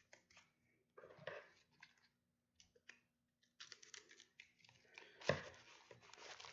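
Faint rustling, crinkling and small clicks of a mailed coin package and its wrapping being handled and opened, with a louder knock about five seconds in.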